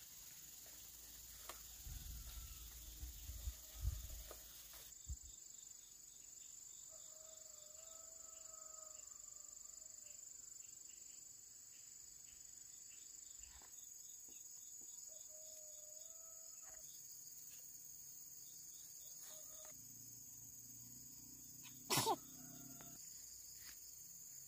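Steady high-pitched insect drone from the forest. Dry fruit-laden branches rustle as they are handled in the first few seconds, two faint wavering tones come through mid-way, and there is one sharp click near the end.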